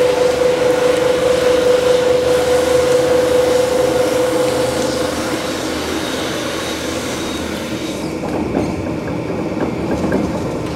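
Two-roll rubber mill running while a rubber compound is worked on its rolls: a steady mechanical drone with a hum that fades out about halfway through.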